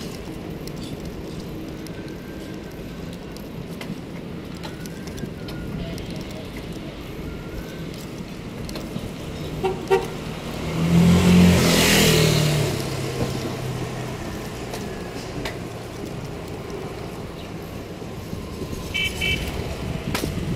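City street traffic: steady road noise with short horn toots. About eleven seconds in, a vehicle passes close with a loud, low horn blast and a rising and falling rush.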